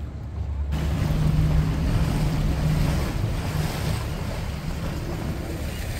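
Wind rushing on the microphone, starting suddenly under a second in, over the steady low drone of a fishing boat's engine and the wash of the sea.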